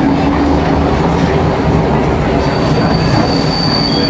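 A London Underground C stock train heard from inside the car while running: a steady loud rumble and rattle of wheels on track. From about two and a half seconds in, a thin, high, steady wheel squeal joins it and carries on past the end.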